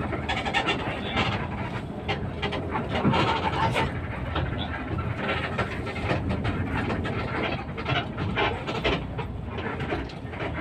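Cabin noise of a Primajasa intercity bus under way: engine and road noise with frequent rattles and knocks from the bus interior.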